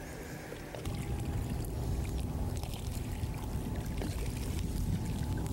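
Low rumble of water around a bass boat's hull, getting louder about a second in, with a faint steady hum.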